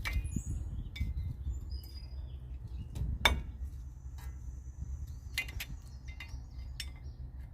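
Scattered sharp metal clicks and clinks of a chisel prying at the cap over a truck hub's axle nut, the sharpest one a little over three seconds in, over a low steady rumble. Birds chirp faintly.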